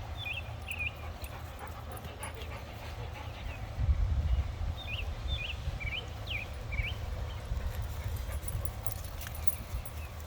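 Dogs whining in short, high-pitched swooping cries, a few at the start and a quick run of about five some five seconds in, over a steady low rumble.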